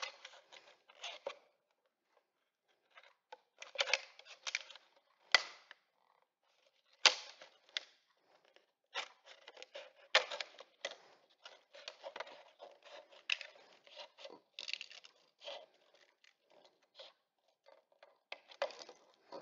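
Scissors cutting through the thin plastic of a 2-liter bottle: short, irregular snips with crackling of the plastic, and a short pause a couple of seconds in.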